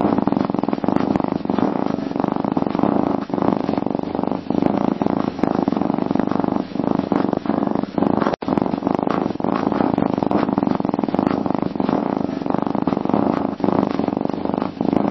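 Domestic cat purring steadily, close up, with a momentary drop-out about eight seconds in.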